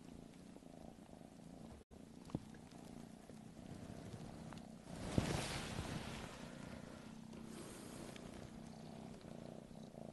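A cat purring steadily and softly, with a brief rustle about five seconds in.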